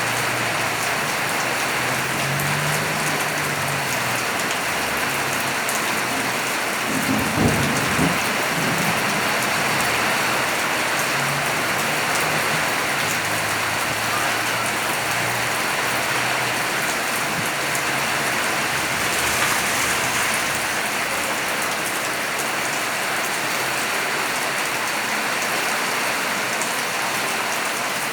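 Steady heavy rain falling and pattering on surfaces, with a brief low thump about seven seconds in.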